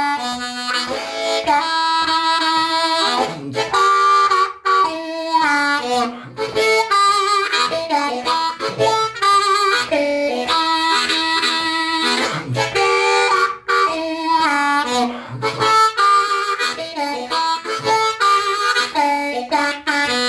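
Diatonic blues harp in A playing a blues solo in E, cross-harp style, mixing single notes and chords, with some bent notes that slide down in pitch.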